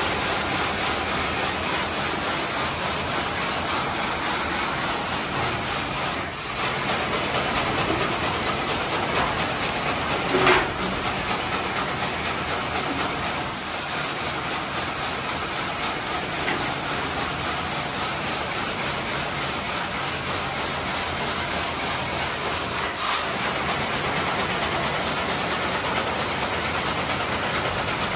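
Compressed air hissing steadily from a mine's air-powered winch as it works an ore bucket, with a sharp knock about ten seconds in and a lighter one later.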